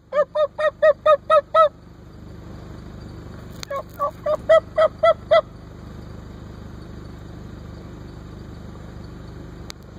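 Wild turkey yelping: two runs of about seven short, arched yelps, about four a second, the second run beginning about three and a half seconds in. A steady low hum lies underneath.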